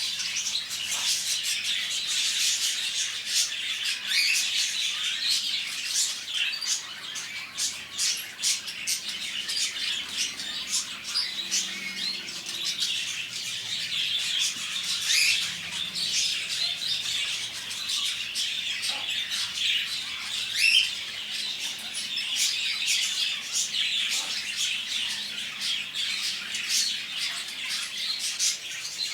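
Many small caged birds in a bird shop chirping, tweeting and squawking all at once, a dense, busy chatter of short high calls.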